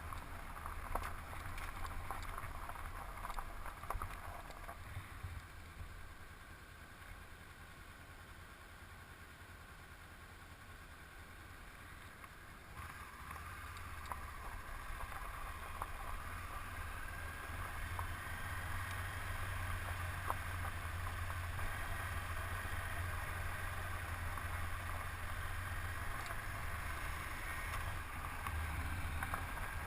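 Honda CB500X parallel-twin engine running while riding, with steady road and wind noise; it quietens for several seconds, then grows louder again from about halfway through.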